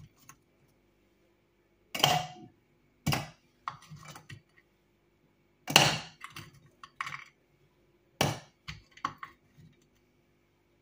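Frozen strawberry slices dropped by hand into a food chopper's bowl, each landing with a hard clack: a string of separate sharp knocks at irregular intervals, about a second apart.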